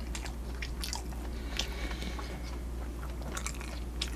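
Close-miked chewing of a mouthful of chive pancake (buchujeon): scattered soft, wet mouth clicks and smacks, a few a second, over a steady low electrical hum.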